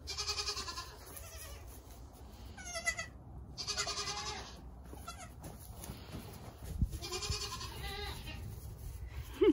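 Nigerian dwarf goat kids bleating several times, short separate calls with pauses between them.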